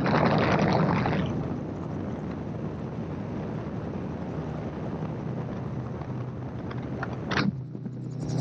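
Gyroplane in flight: steady engine drone under rushing wind on the microphone, with a louder gust in the first second and a short knock near the end.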